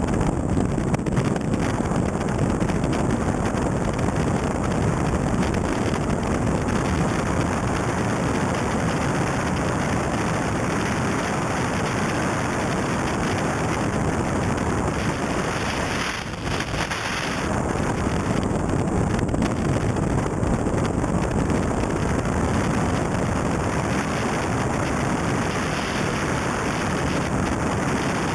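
Mitsubishi Lancer Evo 3 rally car driving fast on a gravel stage, heard mostly as a steady rush of wind buffeting the outside-mounted camera's microphone over the car's engine and tyres. The noise briefly drops about sixteen seconds in.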